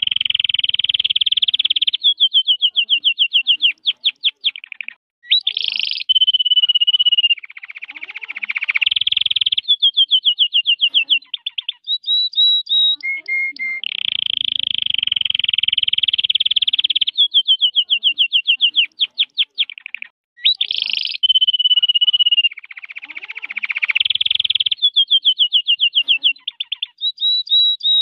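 Red-factor canary singing a long, continuous song: buzzy sustained rolls alternate with fast runs of separate repeated notes, several a second, and short sliding whistles. The same sequence of phrases comes round a second time about halfway through.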